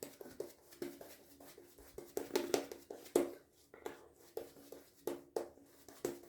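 Badger-style shaving brush worked over the face in short, brisk strokes, building lather for another razor pass: a quiet series of irregular swishing scrapes.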